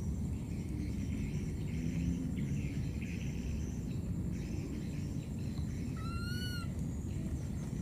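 A lost baby monkey gives a single short, high call that rises and falls, about six seconds in. It is an infant's call for its mother, heard over a steady low outdoor rumble.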